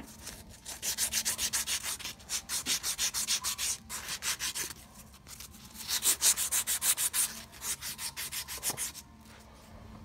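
Emery cloth strip drawn back and forth around the steel pump piston pin of a hydraulic floor jack, clamped in a vise: a fast scratchy rasp of several strokes a second, in two runs with a short pause about halfway through, stopping near the end. It is polishing the pin, which had seized in its cylinder, so it can slide freely again.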